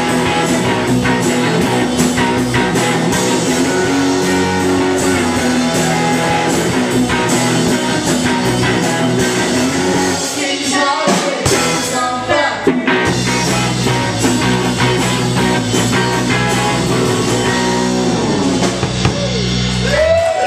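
Live indie rock band playing: a drum kit, electric guitar and bass going full on, with a sung vocal that sits low and gets lost in the club PA mix.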